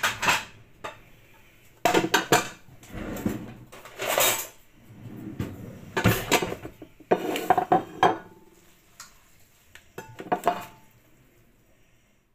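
Dinner plates and a pasta server clattering and clinking in several short bursts, dying down near the end.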